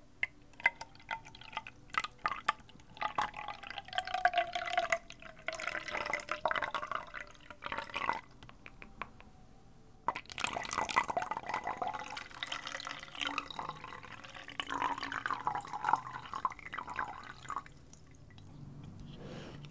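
Water poured from one clear bulb-shaped bottle into another, splashing and trickling, in two long pours with a short pause about eight seconds in. A few sharp clicks come at the start.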